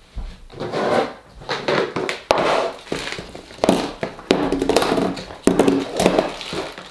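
Rummaging through a clear plastic storage box: items clattering and scraping against the plastic, with spools of solder set down on a tabletop in a series of irregular knocks.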